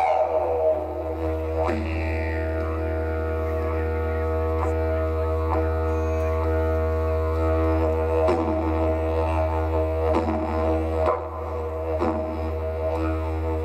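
Didgeridoo played as one continuous low drone, its overtones shifting as the player reshapes his mouth, with a few sweeping accents scattered through the note.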